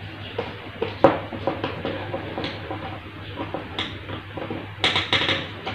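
Hands fitting wires on an electrical wiring board: small scattered clicks and rustling, with a sharp click about a second in and a quick cluster of clicks near the end, over a low steady hum.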